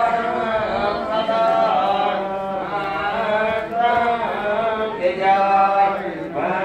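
A group of voices chanting in unison, ritual mantra-style chanting with long held notes that glide up and down and brief breaks between phrases.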